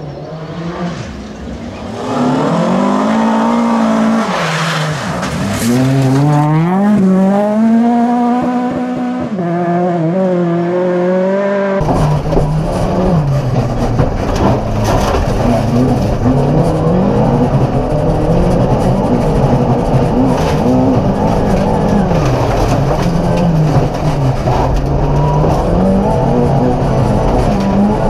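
Volvo 240 rally car engine driven hard, its pitch climbing and dropping again and again with throttle and gear changes. About twelve seconds in the sound switches abruptly to a rougher engine note buried in heavy low rumble and road noise.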